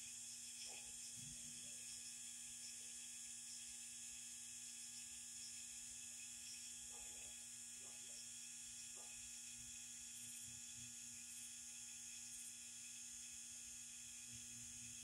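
Near silence: a faint, steady hum under a constant hiss, with a few very faint brief sounds.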